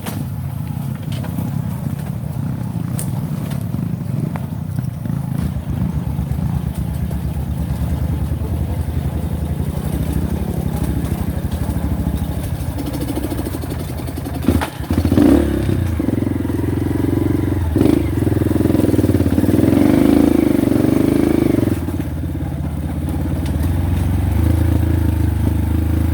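Motorcycle engine running while being ridden, with a sharp knock about fifteen seconds in; the engine then revs harder, its pitch rising and falling for several seconds, and eases off near the end.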